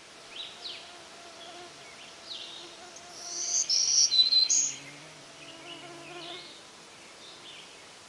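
Black-throated green warbler singing its buzzy song: a loud run of a few high, wheezy notes lasting under two seconds, starting about three seconds in. Fainter short high chirps come before and after it.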